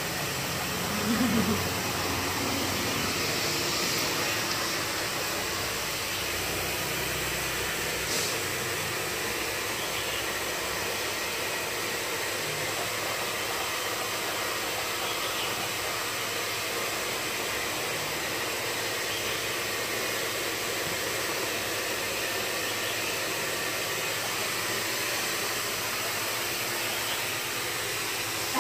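A steady, even hiss that does not change, with one faint tick about eight seconds in.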